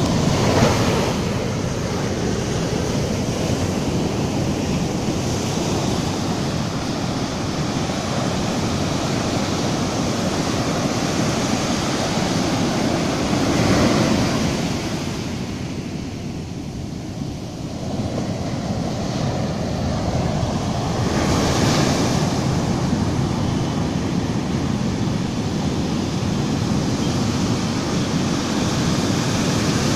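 Surf on a sandy beach: waves breaking, their foam washing up the sand and draining back. A steady wash of noise that swells as waves break near the middle and again about three-quarters through, with a quieter lull between.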